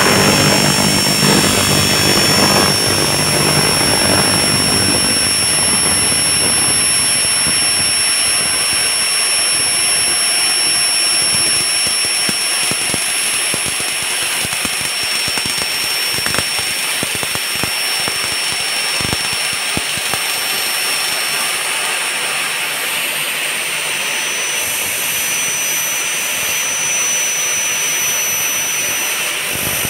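Elumatec AKS 134 upcut saw running, its large circular blade and motor giving a steady high whine over a hiss. A lower rumble dies away over the first few seconds, and the whine shifts slightly higher near the end.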